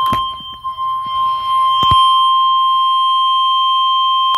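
Emergency Alert System attention signal: a single steady, loud, high-pitched alert tone of the NOAA Weather Radio kind, announcing a severe thunderstorm watch bulletin. Two brief clicks break in, one just after the start and one about two seconds in.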